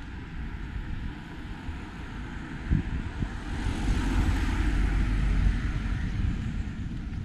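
A motor vehicle passes close by on the road, a rumble with tyre hiss that builds to its loudest about four to five seconds in and then fades away.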